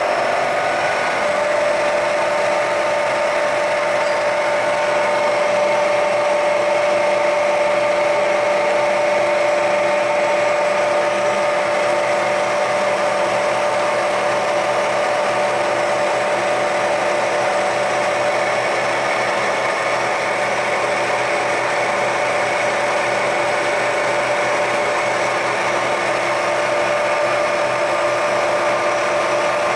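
WMW ZFWZ 250/4 CNC gear hobbing machine running steadily: a motor hum with a steady whine that settles onto one pitch about a second in.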